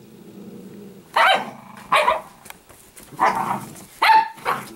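Italian greyhound growling low for about a second, then barking in play: five short, sharp barks, the fourth with a higher yelping note.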